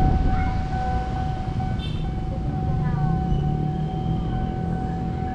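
Steady low engine rumble, swelling a little midway, with a constant thin high-pitched tone and a few short chirps above it.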